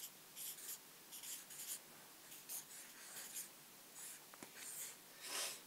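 Pens scratching on paper as two people write, in faint, short, irregular strokes with a longer stroke near the end.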